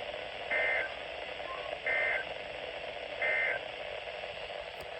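Three short Emergency Alert System end-of-message (SAME EOM) data bursts, each about a third of a second long and a little over a second apart, over steady radio hiss. They are the code that closes an EAS warning broadcast.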